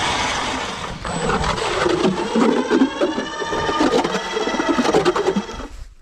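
StrikeMaster battery-powered electric ice auger drilling into lake ice, its motor whining steadily under load, then stopping just before the end.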